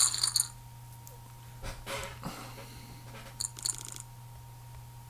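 Online poker game sound effects: a quick run of chip clicks with a bright ring at the start as the pot goes to the winner, then a second, softer run of clicks about three and a half seconds in as the next hand is dealt. A low electrical hum runs underneath.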